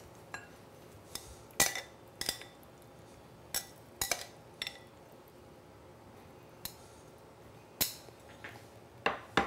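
Metal kitchen tongs clinking against a ceramic serving bowl and plate while a salad is lifted out, in a string of short, separate clinks spread a second or so apart.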